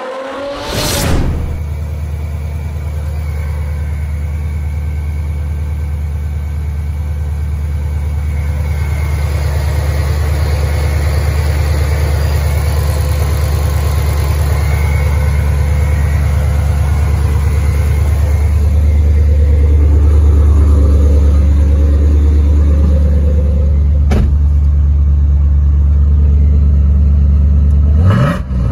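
5.4L Whipple-supercharged Coyote V8 idling steadily at about 1000 rpm, after a short burst of noise at the very start. Near the end the revs begin to rise.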